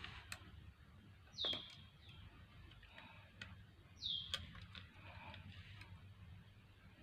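A bird calling twice, about two and a half seconds apart, each call a short high note that slides down and then holds briefly. A few faint light clicks sound between the calls.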